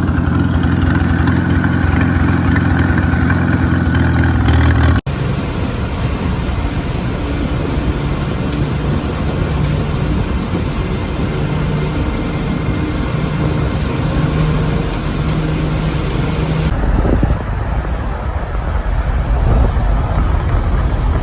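Tractor engine running steadily, heard in three takes that cut about five seconds in and again near the end.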